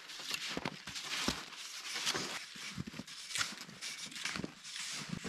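Footsteps and ski-pole plants crunching in sticky snow, a steady rhythm of strides.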